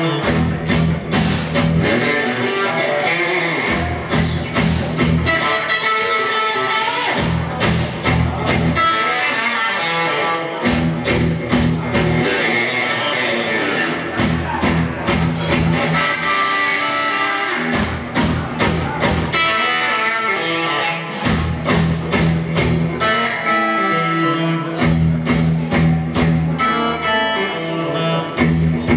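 Live rock band playing: electric guitar, electric bass and drum kit, with a steady bass line and clusters of three or four sharp accented hits every couple of seconds.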